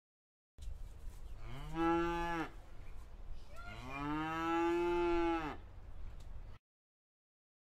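A cow mooing twice over a low background rumble. The first moo, about a second and a half in, is short; the second, around four seconds in, lasts about two seconds. Each rises and then falls in pitch.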